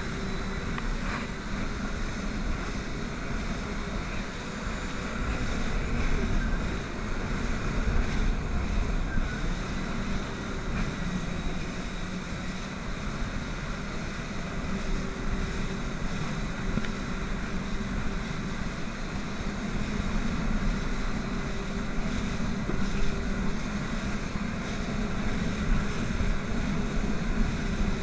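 Jet ski running at speed, its engine a steady hum under wind buffeting the microphone and the rush of spray off the hull.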